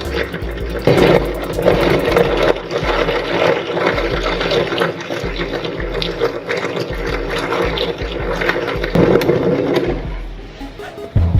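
Meat grinder running with oysters going through it: a steady motor hum under wet, crackling crunching. It dies down about ten seconds in.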